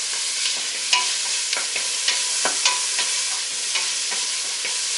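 Chopped onion sizzling in hot butter and olive oil in a pot on medium-high heat: a steady hiss with irregular crackles and pops.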